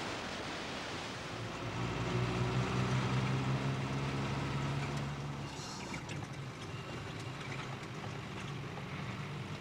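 Rushing water of rapids, then a motorcycle engine running at a steady speed on a gravel road, louder for a few seconds and then settling lower.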